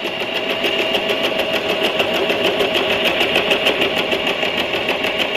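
Usha Janome Allure DLX electric sewing machine running steadily, stitching a long zigzag through fabric, with a rapid even clatter of needle strokes.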